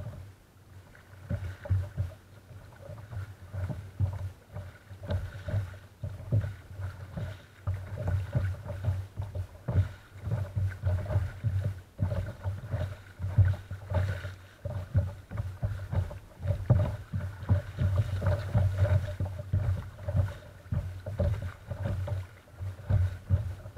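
Small waves slapping and lapping against the hull of a sea kayak as it is paddled through light chop, picked up through a camera mounted on the front deck. The slaps come as irregular low thuds, several a second, starting about a second in.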